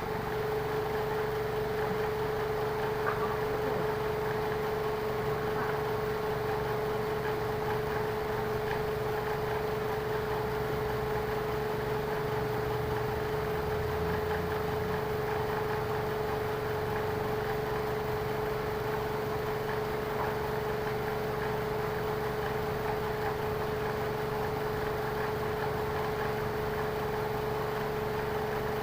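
Lexus car engine running steadily at idle, with a constant mid-pitched hum over a low rumble that cuts in suddenly at the start.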